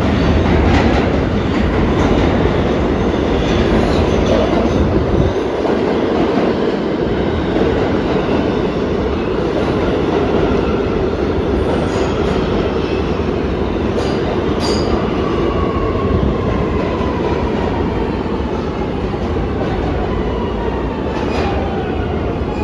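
R211 New York City subway train running, heard from inside the car: a steady loud rumble with a few sharp clicks from the wheels on the rails. In the last several seconds a whining tone slides slowly down in pitch.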